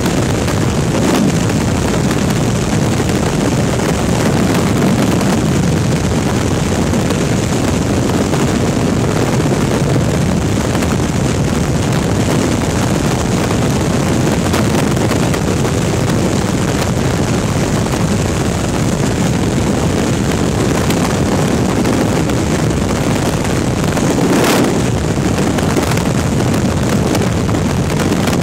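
Steady, loud rush of freefall wind buffeting a helmet-mounted camera's microphone during a skydive.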